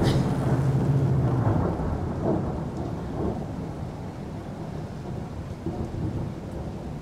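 Deep rumble dying away about a second and a half in, leaving a steady hiss that slowly fades.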